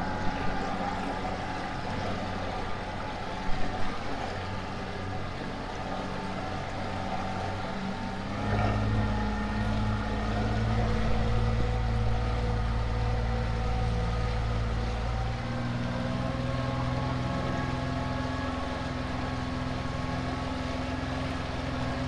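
Honda BF25 four-stroke outboard motor running under way at gentle throttle while still in its break-in period. About eight seconds in it picks up, getting louder, and its pitch then creeps slowly higher. A couple of brief knocks come about three and a half seconds in.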